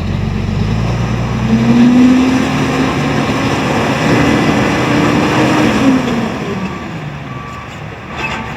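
Diesel engine of a DW90A mining dump truck running hard. Its pitch rises about a second and a half in, holds, then drops off after about six seconds and fades.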